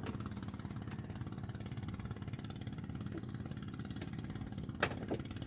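A small engine running steadily at an even idle, with one sharp click a little before the end.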